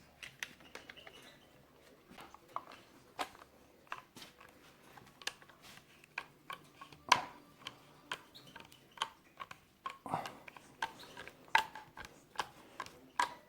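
Irregular clicks and small knocks of metal parts being handled and fitted together as a Hatsan 125 air rifle is reassembled by hand, with two louder knocks, about seven seconds in and again near the end.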